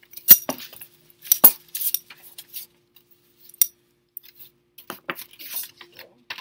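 Scissors cutting construction paper: sharp metallic snips and clicks at irregular intervals, the loudest about a third of a second in, with short rustles of paper between.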